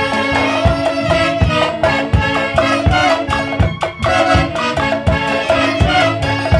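Live dance music from a Huancayo orchestra: a steady beat of low drum strokes about twice a second under sustained melodic lines from the band.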